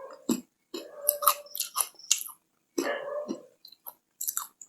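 A person chewing and biting a peanut-flavoured chocolate bar, with irregular crisp crackles between softer chewing.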